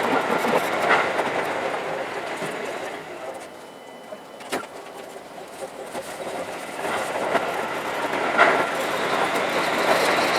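Seibu Shinjuku Line commuter train running on the track. Its noise fades to a quieter stretch in the middle and builds up again, with one sharp click about four and a half seconds in.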